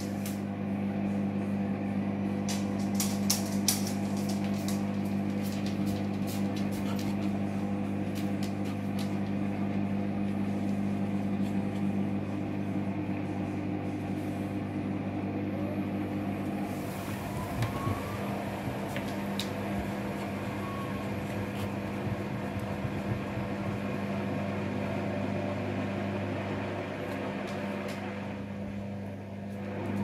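Hoover front-loading washing machine running during a suds-lock, with a steady low motor or pump hum and water sloshing in the drum. A few clicks come near the start, and the hum changes slightly about halfway through.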